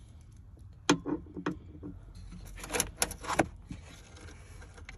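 Sharp clicks and metallic clinks of a socket extension and screws knocking against a car speaker's plastic frame and the rear side trim panel as the speaker is positioned for screwing in. A handful of separate knocks, the loudest about a second in and around three seconds in.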